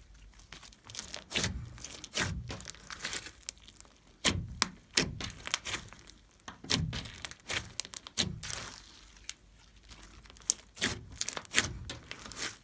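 Glossy slime being squeezed and kneaded by hand: irregular bursts of sharp sticky clicks and pops with soft low thuds.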